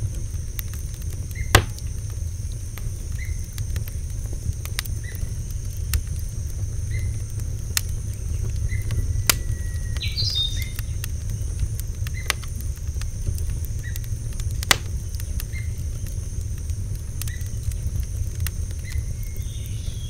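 Night-time outdoor ambience: a steady high insect drone over a low rumble, with scattered sharp clicks and a brief chirp about ten seconds in.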